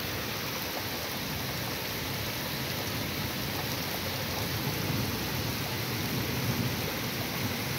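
Heavy rain pouring down, a dense, steady hiss.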